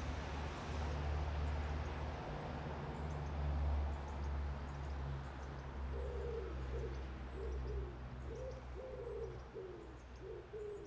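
A pigeon cooing, a run of short wavering coos repeating from about halfway through, over a steady low rumble. Faint high chirps of small birds come and go.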